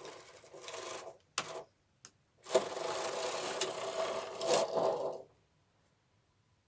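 Knitting machine carriage pushed across the needle bed to knit a row, a steady sliding rattle of the carriage over the needles, with a few clicks before it. The sound stops abruptly about five seconds in.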